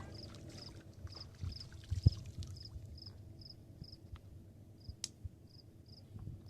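An insect chirping in a steady rhythm, about two short high chirps a second, growing fainter toward the end. A few dull low thumps sound under it, the loudest about two seconds in, and there is one sharp click about five seconds in.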